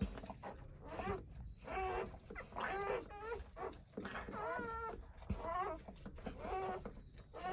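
Newborn Doberman puppies crying: a string of short, high, wavering squeals, about one a second.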